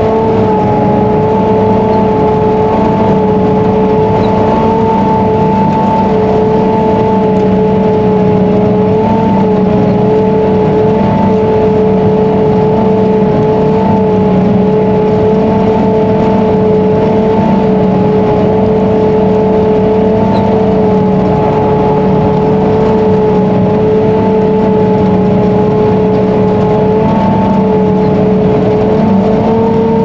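Krone Big X self-propelled forage harvester chopping corn under load, heard inside its cab: a loud, steady machine drone with an even whine over it.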